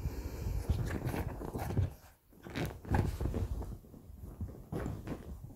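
A French bulldog puppy scuffling and mouthing under a fleece blanket: irregular fabric rustles with small bites and chews, easing briefly about two seconds in.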